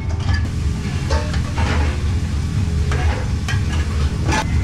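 Metal tongs scraping and clinking in a sauté pan as pasta is lifted out onto plates, with a few short clatters spread through and a steady low kitchen hum underneath.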